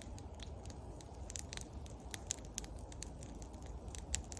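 Birch-wood campfire crackling, with irregular sharp pops over a low steady rumble.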